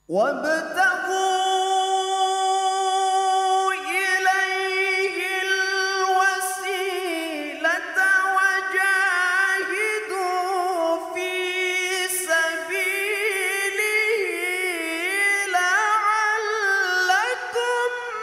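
A male qari's solo voice in melodic Qur'an recitation (tilawah), starting after a pause with a long held high note, then moving into continuous ornamented runs up and down in pitch.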